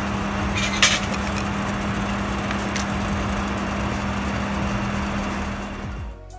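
Steady hum and hiss of laboratory equipment, with one sharp click of glassware knocking about a second in. The hum cuts off shortly before the end.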